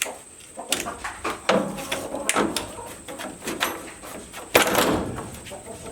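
Irregular metallic clicks and knocks as the parts of a garden-tractor electric starter are pressed back together, the armature being forced down into its magnet housing. The loudest is a longer, louder clatter about four and a half seconds in.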